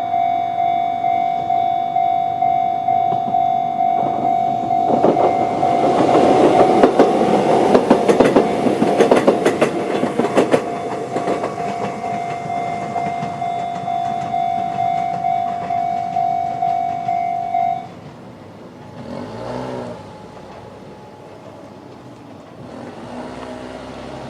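Electronic level-crossing bell with the Chichibu-type tone, ringing in even repeating pulses, while a Konan Railway 7000-series electric train passes over the crossing with its wheels clattering over the rail joints. The bell cuts off about 18 seconds in.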